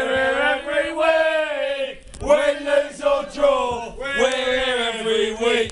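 Football supporters chanting: a group of male voices singing in three long phrases of about two seconds each, with held notes.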